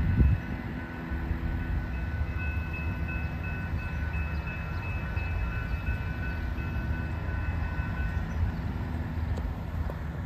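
Low, steady rumble of a Florida East Coast Railway freight train out of sight down the line, with a faint high-pitched ring through the middle.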